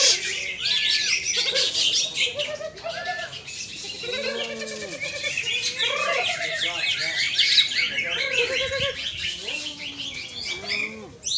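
Many caged songbirds singing at once, a dense, overlapping chorus of fast chirps, trills and whistled phrases, with lower, voice-like sounds beneath.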